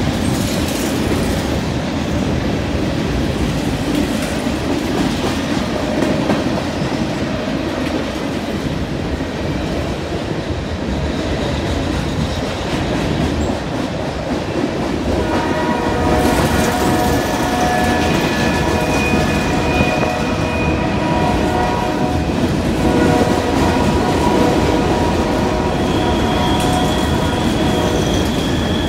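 Loaded covered hopper cars of a freight grain train rolling past at speed, with a steady rumble and wheels clacking over the rail joints. About halfway through, a chord of steady ringing tones joins in and keeps coming and going.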